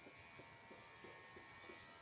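Near silence: a faint steady hum with soft ticks about four times a second.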